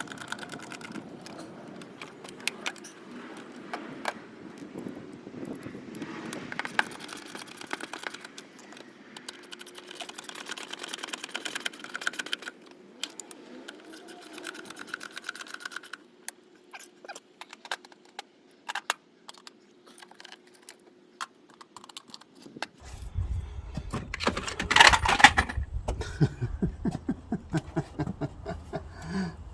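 Hand work in a car's engine bay: many small clicks, taps and rattles of plastic and metal parts and tools being handled as the air filter housing goes back together. From about 23 s in there is a louder stretch of knocking with a low rumble underneath.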